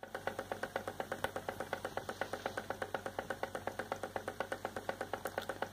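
Model Ringbom engine, a Stirling-type hot-air engine, running steadily with a rapid, even mechanical ticking of about eight clicks a second.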